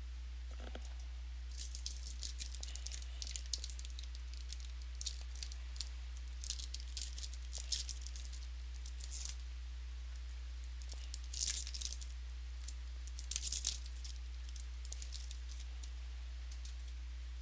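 A trading card pack's plastic wrapper being torn open and crinkled by hand, in two spells of short crisp rustles, over a steady low electrical hum.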